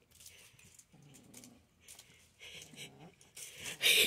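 Sphynx kitten growling in a series of short, low, rough bursts while biting and tugging a string toy, a possessive play growl. The last burst near the end is louder and noisier.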